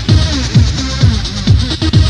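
Electronic dance music with a steady kick drum, just over two beats a second, under a short repeating synth riff.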